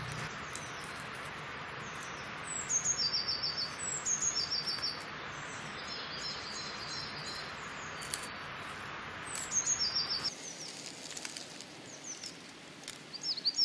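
Small songbirds singing: short, bright trilling phrases, repeated every second or two, over a steady background hiss that drops about ten seconds in.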